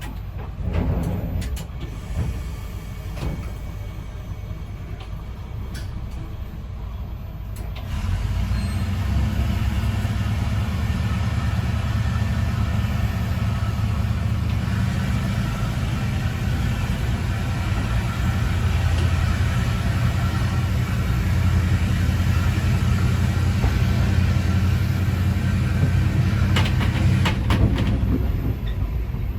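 Ex-JNR KiHa 205 diesel railcar's DMH17 engine running quietly, then opening up about eight seconds in and pulling hard under load as the railcar gets moving, a steady low drone that stays up.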